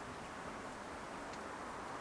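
Steady, even outdoor background hiss with no rhythm, and a few faint short high ticks.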